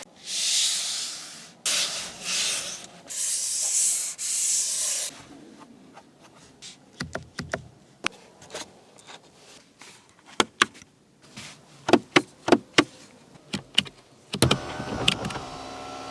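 Sounds of a 2025 BMW 325Li's cabin fittings: four loud hissing swishes, then a run of sharp clicks like switches or latches being worked. Near the end an electric motor starts and runs with a steady whine, like a power window or seat motor.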